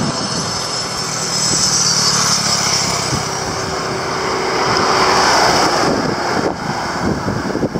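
A motor vehicle's engine and road noise going by, swelling to its loudest about five seconds in over a steady outdoor din.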